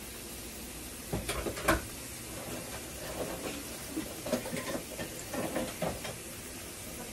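Salmon croquettes sizzling steadily in hot oil in a frying pan. A few sharp knocks and clatters sound over it, the loudest about a second and a half in and a cluster between four and six seconds.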